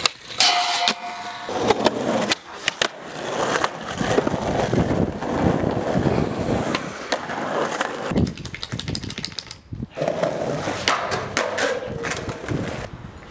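Skateboards rolling over asphalt and stone paving, with the rough rumble of the wheels broken by sharp clacks of tails and boards hitting the ground. Near the start a board scrapes along a rail with a brief steady screech.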